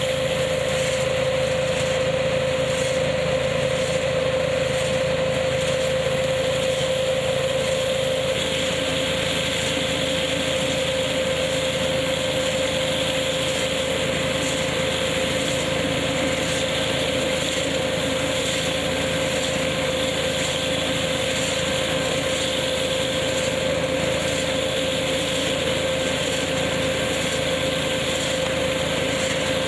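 KF-501 tractor-driven hazelnut picking machine running steadily with its tractor's engine, an even, unchanging machine noise with a steady hum.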